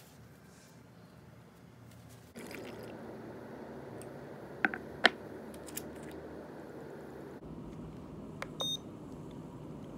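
A steady noise starts a couple of seconds in, with two sharp clicks a half-second apart in the middle. Near the end comes another click and a short electronic beep.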